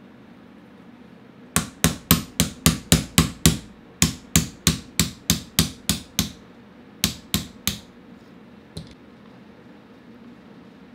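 A hammer tapping a pin punch to drive out the barrel retaining pin of a Walther Rotex RM8 air rifle. About twenty sharp metal taps come at roughly four a second, in three runs with short pauses, and the last three fall about seven seconds in.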